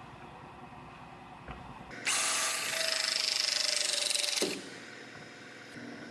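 A battery-powered tool motor in an autobody shop runs at high speed with a fast flutter for about two and a half seconds, starting about two seconds in and stopping sharply.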